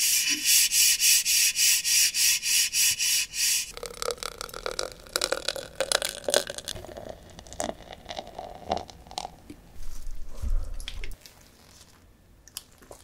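Beer being poured into a glass, glugging rhythmically at about four pulses a second for the first few seconds. This is followed by softer, irregular crackling and clicking until near the end.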